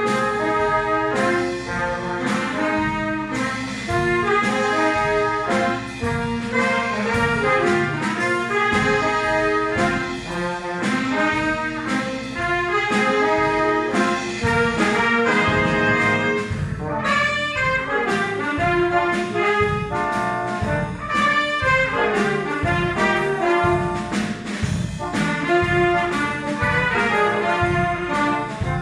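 A wind band playing live: trumpets, trombones and saxophones carrying the tune over a steady beat.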